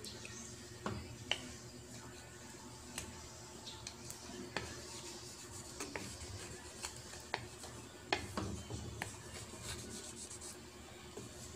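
A wooden spatula stirring and scraping a chicken stew in a metal pan, with scattered light knocks of the spatula against the pan over a faint steady hiss.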